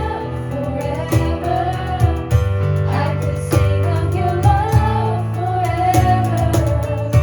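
Worship band playing a song: a sung melody over guitar, steady bass notes and a regular drum beat.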